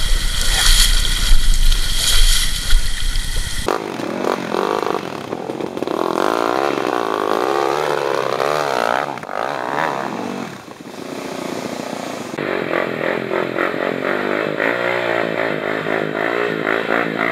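Dirt bike engines revving up and down as the bikes are ridden through a shallow river, in several cut-together clips; the first few seconds are a loud rushing noise with no clear engine note.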